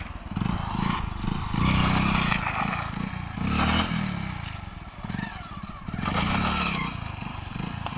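Motorcycle engine revved in three surges, its pitch rising and falling each time, with some scraping and clatter.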